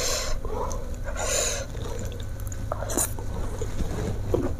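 A person's sharp, hissing breaths through the mouth, two about a second apart, then small clicks and snaps near the end as a fresh petai (stink bean) pod is pulled open by hand.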